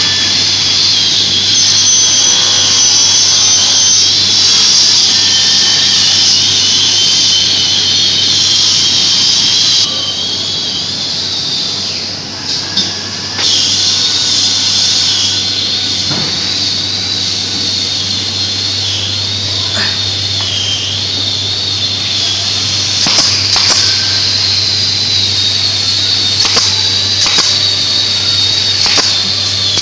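Steady high-pitched whine of running shop machinery with a low hum underneath. In the last several seconds a pneumatic brad nailer fires, a handful of sharp snaps as brads are driven into a wooden cabinet frame.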